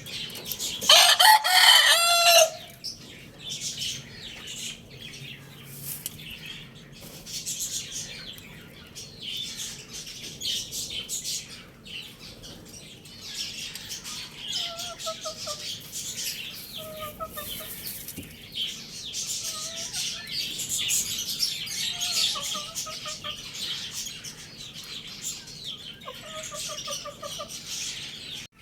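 A rooster crows once, loud, about a second in. Then chickens rustle and flap, with short clucking calls every couple of seconds in the second half.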